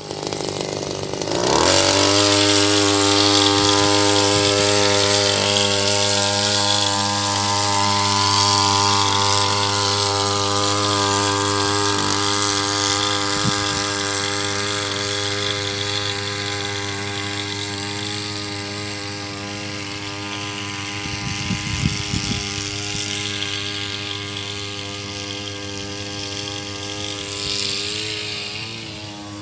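Small petrol engine of a backpack power sprayer revving up about a second and a half in, then running steadily at high speed with a hiss of spray mist. It grows slowly fainter as the sprayer moves away.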